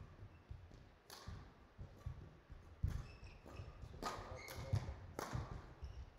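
Badminton rally: rackets striking the shuttlecock, a sharp hit roughly every second, over the players' footwork on the court floor.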